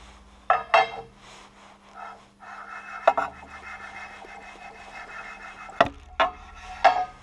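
Paint-coated metal straightedge rubbed back and forth along the hardened guideways of a 1A616K lathe bed, printing the contact spots after grinder scraping. A scraping rub runs through the middle, with several sharp, ringing metallic clinks as the straightedge is set down and shifted.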